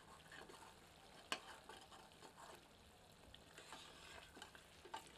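Faint scraping and stirring of a ladle through thick, well-fried chicken masala in a steel pot, loosening masala that has started to stick to the bottom, with a light sizzle. One sharper knock about a second in, and another near the end.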